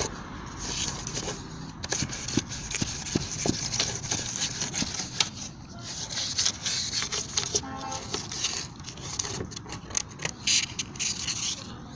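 1,000-grit sandpaper scraping by hand over a headlight lens in uneven strokes, stripping off the old peeling clear coat.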